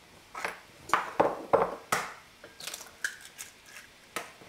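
Eggs being cracked against the rim of a bowl: a run of sharp taps and cracks, the loudest in the first two seconds, then lighter clicks.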